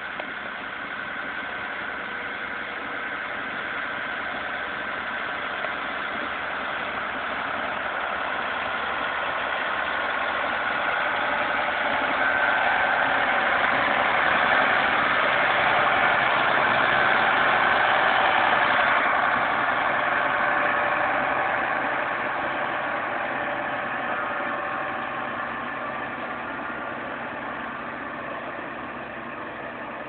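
Ford 7840 tractor's six-cylinder diesel engine working under load, pulling a three-furrow plough through the ground. It grows louder as the tractor passes close by around the middle, then fades as it moves away.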